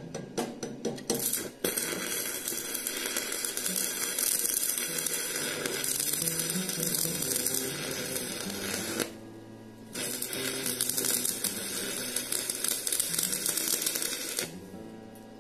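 Stick-electrode arc welding. A few scratchy ticks as the rod strikes the arc, then the steady crackling sizzle of the arc. It breaks off for about a second near the middle, restarts, and stops shortly before the end.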